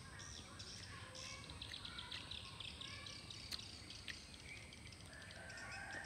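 Small birds chirping over faint outdoor background noise, with a sharp click about halfway through, like a metal spoon touching a plate.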